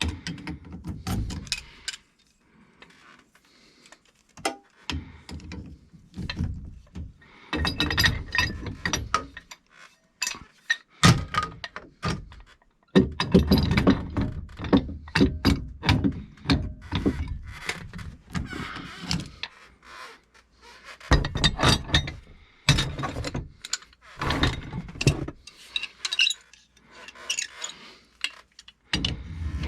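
Bursts of clicking and knocking from hand tools at work on the plumbing around a pressure reducing valve, coming in spells of a second or two with short pauses between.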